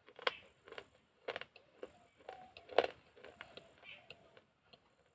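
Crunching and chewing of broken baked-clay pot pieces: a series of sharp crunches about half a second apart, the loudest about three seconds in, then smaller clicks and crackles.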